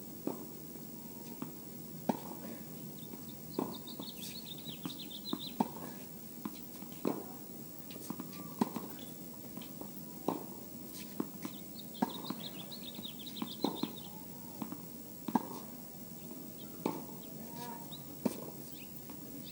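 Tennis rally: racket strikes on the ball about every one and a half seconds, with fainter ball bounces between them. Two short stretches of high squeaking.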